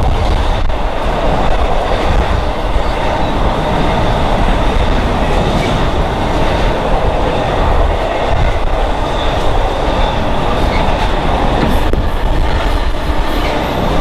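Container wagons of a freight train passing at speed on the adjacent track: a loud, steady rush and rumble of steel wheels on rail.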